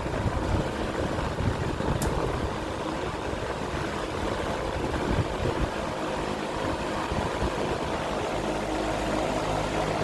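Lakewood 200i box fan running on high with a three-wing high-velocity blade off a Dayton fan: a steady rush of air and blade noise over a low motor hum. The blade loads the motor, which the owner takes for the bearings starting to struggle.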